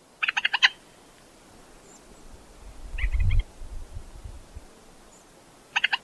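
Gough moorhen calling: a quick run of about five short, sharp notes, a softer run about three seconds in, and another quick run near the end. A low rumble sounds under the softer run.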